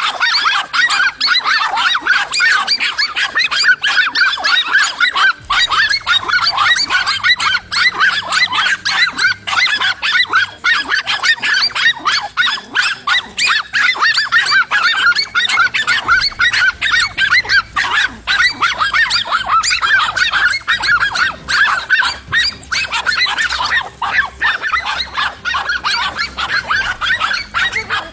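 Several dogs barking and yelping in rapid, overlapping, high-pitched calls without a break, a pack harassing a cornered monitor lizard.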